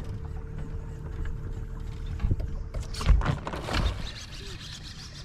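Bass boat's bow-mounted electric trolling motor humming steadily over a low rumble, the hum stopping about three seconds in. A few knocks on the boat deck come around the middle.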